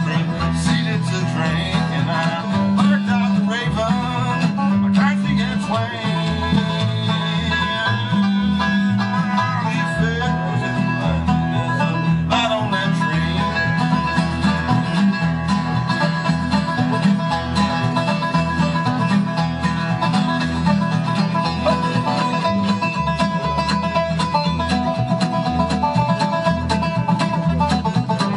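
Live bluegrass instrumental break: banjo picking fast rolls over strummed acoustic guitar and an upright bass plucking a steady beat.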